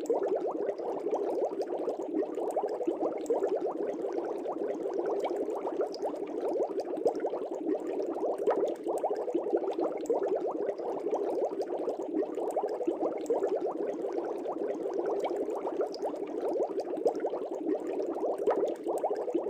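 Aquarium air bubbles streaming up through water: a steady, dense bubbling made of many small pops, low in pitch.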